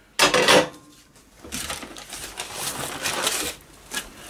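Baking paper crinkling and rustling as a raw meatloaf is lifted off it by hand. There is a louder rustle just after the start, then a couple of seconds of irregular crinkling.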